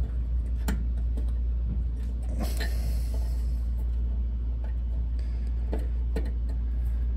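A steady low hum, with a few light clicks and rustles as hands work the igniter's wire connector and leads loose at the back of the oven's lower compartment.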